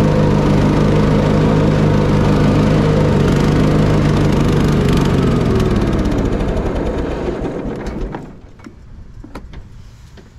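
Simplicity Coronet rear-engine riding mower's engine running steadily, then slowing with falling pitch from about three seconds in and dying out by about eight seconds: a stall after about 20 minutes of running, which the owner takes for fuel starvation. A few light clicks follow once it has stopped.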